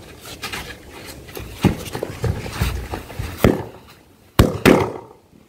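Firecrackers tied to the neck of a Coca-Cola bottle going off: two sharp bangs a fraction of a second apart near the end, after a few seconds of handling thuds and scuffing.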